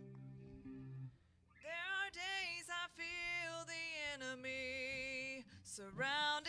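A held electric guitar and piano chord fades out, and after a short pause a woman starts singing a slow worship song into a microphone, her melody gliding between notes and breaking briefly near the end.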